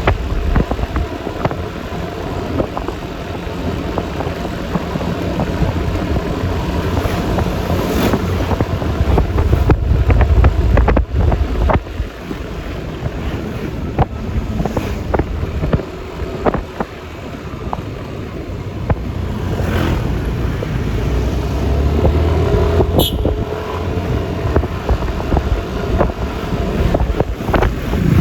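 Wind buffeting the microphone over the running engine and road noise of a Yamaha Lexi LX 155 scooter on the move.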